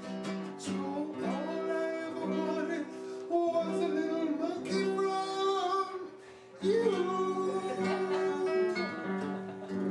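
A song with strummed acoustic guitar and a singing voice.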